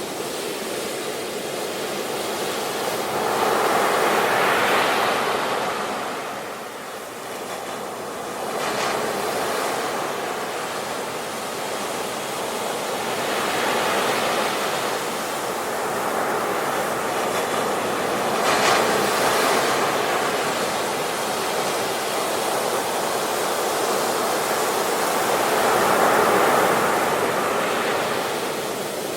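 Sea waves breaking on the shore, a continuous wash that swells and recedes every few seconds, with sharper crashes about eight and eighteen seconds in.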